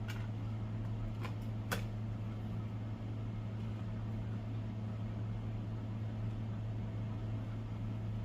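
Steady low mechanical hum, like a fan or appliance motor running, with a few faint clicks in the first two seconds.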